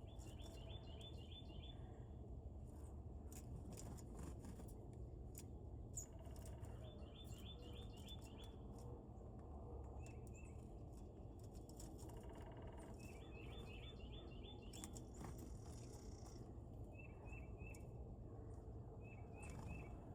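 Faint songbird song: a phrase of about six quick slurred notes repeated three times, with shorter three-note phrases between, over a steady low rumble and scattered light clicks.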